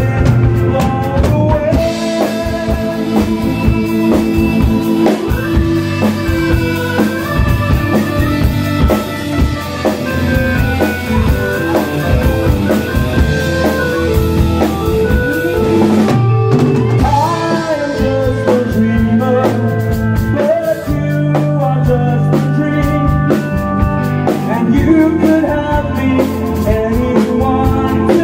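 Live rock band playing a song: drum kit, acoustic and electric guitars and keyboard, with a singer's voice over it.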